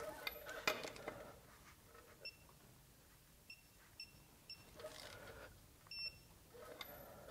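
Faint, short, high electronic beeps from a torque wrench set to 140 foot-pounds while lug nuts are tightened, repeating several times at uneven intervals. Between the beeps come a few clicks and metallic clinks from the wrench and socket.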